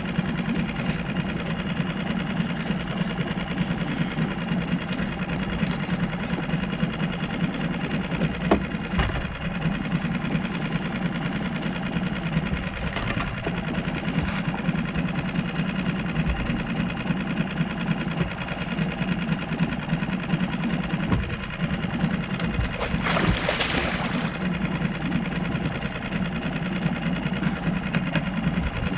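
Small boat motor running steadily at idle, a constant even mechanical drone. About 23 seconds in there is a brief rush of noise.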